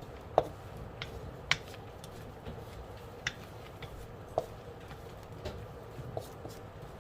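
A cooking utensil knocking and clinking against a pan as shrimp are stirred: a few sharp taps at uneven intervals over a low steady hum.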